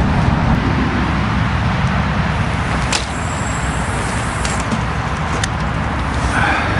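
Steady low rumble of outdoor background noise, with a sharp click about three seconds in and a fainter one a little after five.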